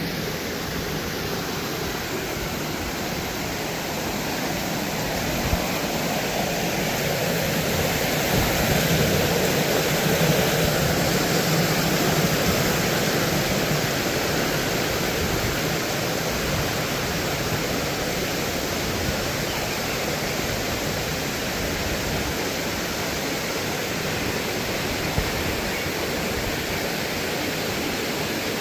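Waterfall crashing steadily into its pool, a constant full rush of water that swells a little in the middle.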